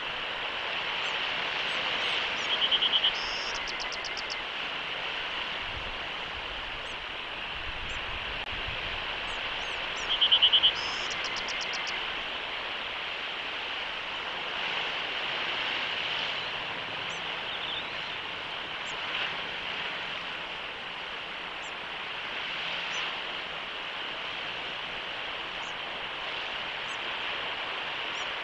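Steady outdoor hiss with scattered faint high bird chirps. Twice, about three seconds in and again about ten seconds in, a bird gives a short, rapid series of high notes, the loudest sound.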